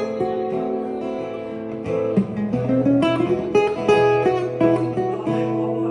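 Acoustic guitar strummed as an instrumental break between sung verses, with chord changes and a short run of notes climbing in the low strings about two seconds in.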